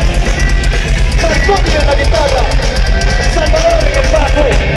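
Live punk rock band playing loud: electric guitars, bass and fast drumming, with the singer's voice over the band through the PA.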